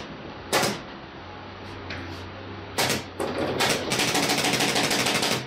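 Pneumatic upholstery staple gun firing staples through fabric into an armchair frame: three single sharp shots in the first four seconds, then a rapid run of shots lasting about a second and a half near the end.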